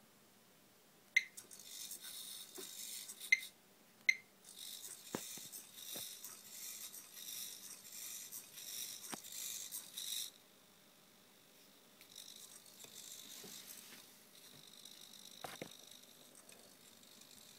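A small homemade hexapod robot walking: its leg motors whir and its wire legs rattle and tap on a desk, with a pause about ten seconds in before it goes on more quietly. Three short high beeps from its onboard sound effects come in the first four seconds.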